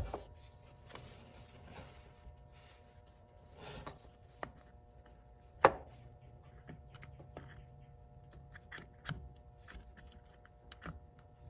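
Scattered light clicks and knocks of an ATV shift motor being worked into its seat on the engine, with a sharp knock about five and a half seconds in.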